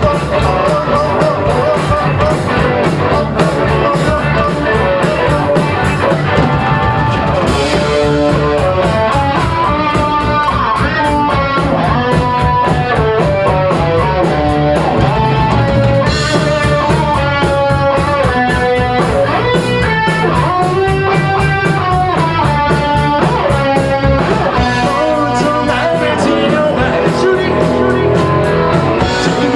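Live rock band playing loudly: electric guitar carrying a bending melodic line over steady drums with cymbals and bass, with no vocals.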